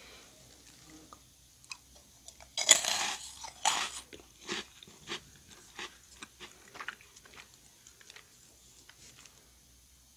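Crisp meringue cookie bitten with a loud crunch about two and a half seconds in and a second crunch about a second later, then softer crackling chews that die away around seven seconds in.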